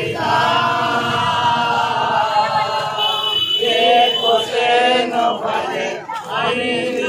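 A crowd of men chanting loudly in unison as they walk in a Muharram procession: long drawn-out calls held for a few seconds each, with brief breaks a little past three seconds and around six seconds in.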